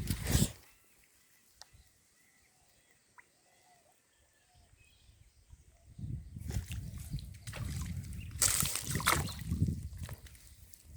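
Water splashing once at the start, then a quiet stretch with faint bird chirps, then irregular sloshing and splashing of water from about six seconds in, loudest around eight to nine seconds.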